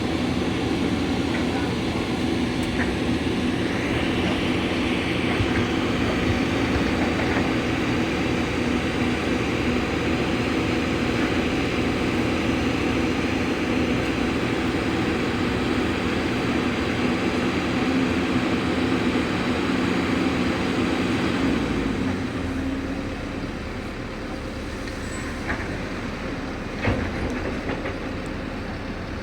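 Heavy diesel machinery running steadily, then easing to a lower level about 22 seconds in, with a single sharp knock near the end.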